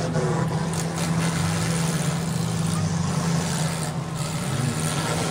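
Engines of several demolition derby cars running together, a steady drone with one engine briefly revving up about four and a half seconds in.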